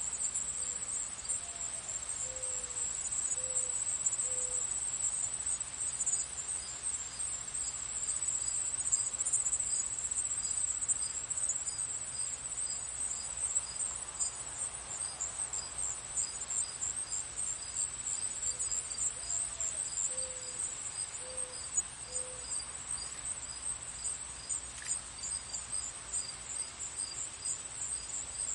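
Crickets chirping in a steady, high-pitched chorus, with a softer regular chirp, about one a second, joining from about six seconds in. A low bird call of one rising note followed by three lower notes comes twice, near the start and again about twenty seconds in.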